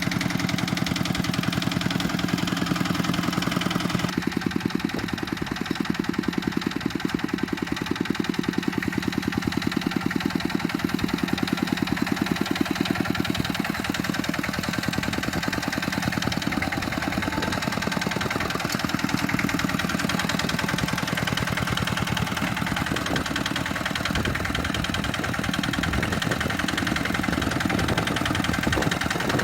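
Tractor engine running steadily with a fast, even chugging. The sound changes abruptly about four seconds in.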